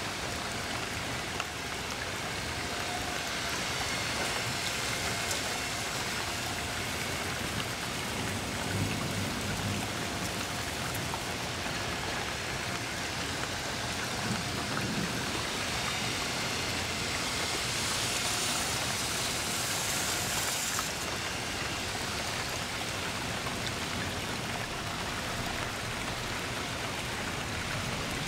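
Steady rain falling and pattering on surfaces, swelling for a few seconds past the middle.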